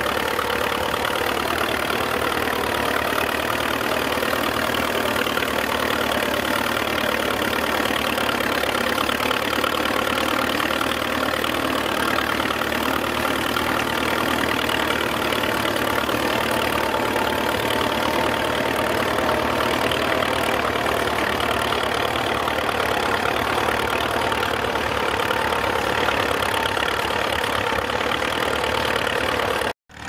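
Engine of a vintage steel-wheeled tractor running steadily under load while pulling a plough.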